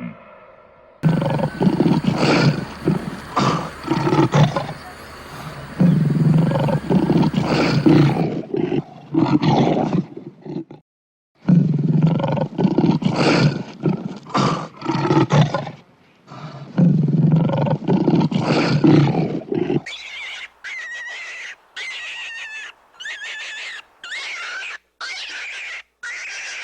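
Big cat roaring and growling in a series of loud, rough calls, with a brief pause midway. About 20 seconds in, this gives way to short high-pitched squeaks repeated roughly once a second, from a small animal.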